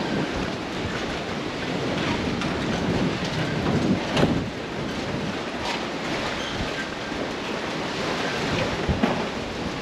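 Strong wind buffeting the microphone: a steady rushing noise with low rumble and a couple of harder gusts or bumps about four seconds in and near the end.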